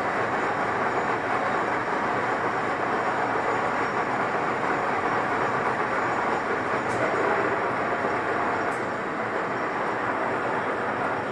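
A 1M63F101 screw-cutting lathe running under power, giving a steady, even whirring rumble from its spindle and headstock gearing, with a couple of faint ticks.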